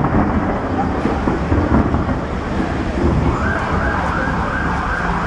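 Loud city street noise with a low rumble, and an emergency-vehicle siren that starts wailing about three seconds in.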